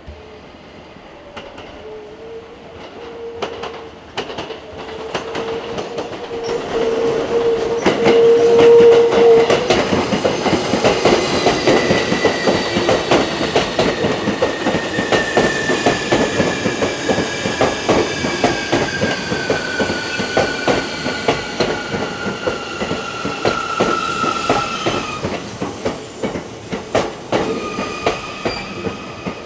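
Electric train braking: its VVVF inverter and traction motors whine in several tones that fall slowly in pitch, then change character near the end, while the wheels click rhythmically over rail joints.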